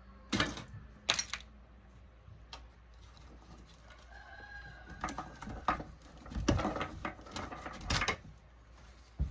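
A rooster crows in the background about four seconds in. Over it comes a series of sharp knocks, clicks and rattles from electronic parts of a touchscreen panel being handled during disassembly, bunched toward the second half.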